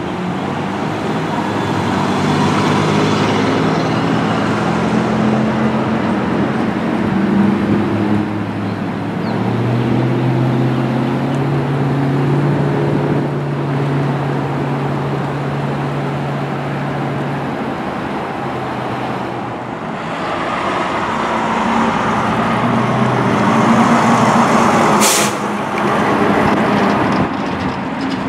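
Street traffic dominated by heavy truck engines: a box truck's engine note steps and then holds steady as it drives off, and a tractor-trailer passes near the end. A brief sharp sound comes about 25 seconds in.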